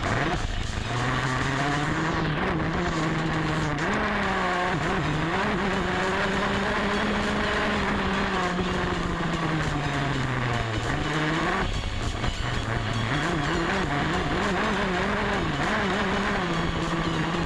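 Dirt bike engine running under load on a trail ride, its pitch rising and falling with the throttle, dropping sharply a few times as the rider shifts or backs off and climbing again.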